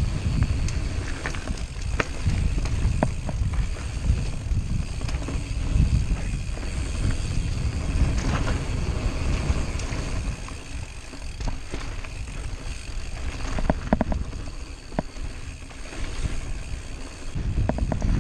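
Mountain bike riding fast down dirt singletrack: a steady low rumble of wind on the microphone and tyres on the trail, broken by frequent sharp clicks and rattles from the bike over bumps and roots.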